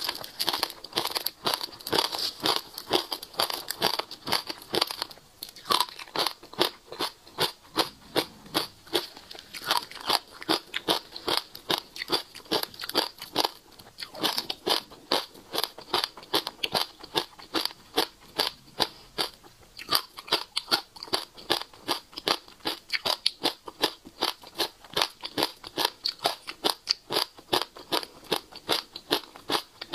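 Passion fruit seeds and pulp crunching and crackling close to the microphone, in an irregular run of crisp clicks, a few each second.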